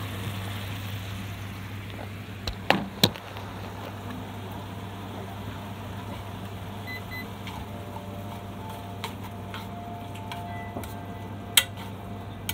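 Nikujaga simmering in a frying pan over a steady low hum, with sharp clacks of chopsticks against the pan, three about two and a half to three seconds in and one more near the end.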